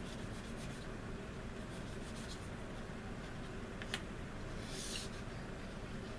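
Light scratching of sandpaper on a small plastic model-kit part, sanding off a stray piece, with a sharp click about four seconds in and a short rasp just after.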